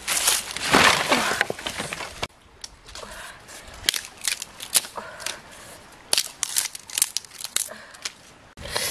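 Loud crunching of dry leaves and sticks for about two seconds, then a run of sharp snaps and clicks as small dry sticks are broken by hand and laid out to build a fire.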